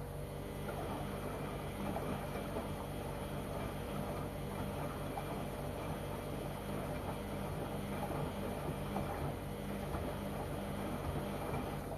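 LG washing machine drum turning during the wash cycle, with clothes and water churning inside over a steady motor hum. The tumbling starts just after the beginning and stops near the end.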